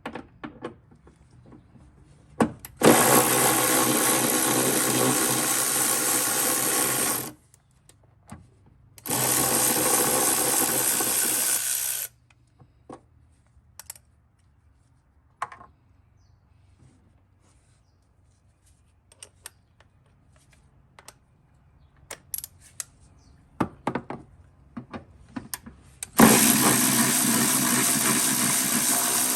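A cordless power tool with a socket runs in three steady spells of a few seconds each, spinning out bolts, with light clicks and knocks of tools and parts in between.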